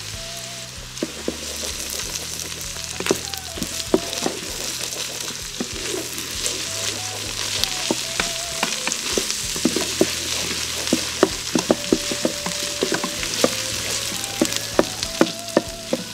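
Diced onions, carrots, garlic and tomato paste sizzling in the metal inner pot of an Instant Pot on sauté as the tomato paste is cooked off, with a wooden spoon stirring and scraping against the pot bottom in many short clicks that come more often in the second half.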